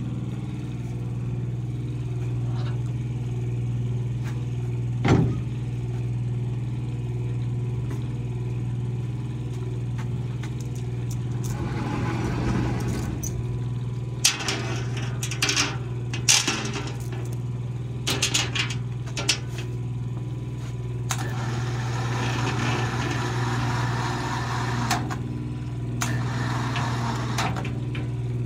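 Steady low hum of shop machinery, with a sharp metal clank about five seconds in and a run of metal clanks and rattles later as a large circular sawmill blade is moved and hung on a chain.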